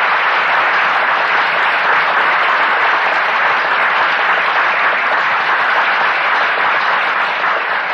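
A large audience applauding, a dense steady wash of clapping that starts abruptly and dies away near the end.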